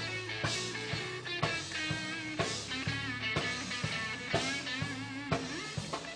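Electric guitar solo with bent, wavering notes over a steady drum and bass groove in a live gospel band.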